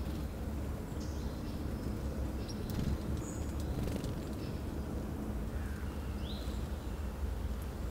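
Scattered short, high chirps and call notes from small songbirds, with a quick rising note about six seconds in, over a steady low rumble.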